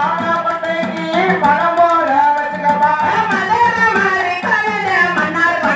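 A Tamil mulaipari folk song sung through a microphone and loudspeaker, with a hand drum beating a steady rhythm under the voice.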